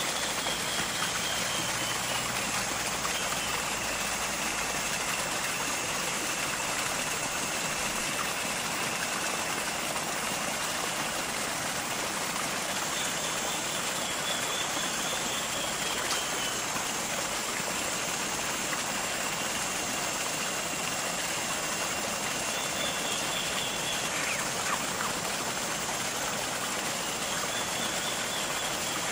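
A steady rush of running water. Over it are thin, high whistling tones lasting several seconds each, some slowly falling in pitch, and a fainter, higher tone that comes and goes.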